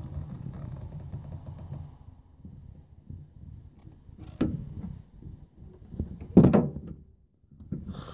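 Rustling handling noise for the first two seconds, then two sharp knocks, about four and a half and six and a half seconds in, the second the louder.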